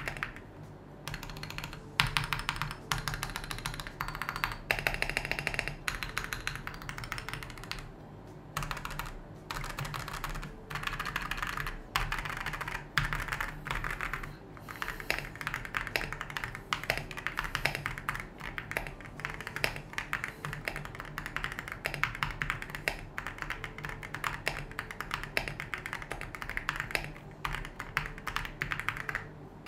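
Typing on a Monsgeek M1 V3 aluminium 75% custom keyboard with light Akko Dracula linear switches and Akko Bun Wonderland PBT keycaps: fast runs of keystrokes with short pauses between them. The keystrokes sound somewhat thocky and low-to-mid in loudness.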